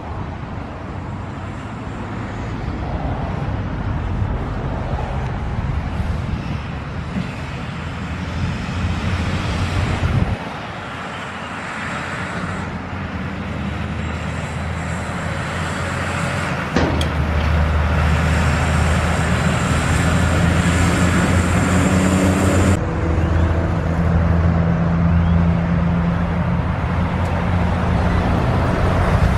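Heavy diesel trucks driving past on a road, engines droning with tyre and road noise. The sound comes in several short clips, with abrupt cuts about ten, seventeen and twenty-three seconds in. The engine drone is loudest in the later clips, where a loaded logging truck and then a container semi-trailer go by.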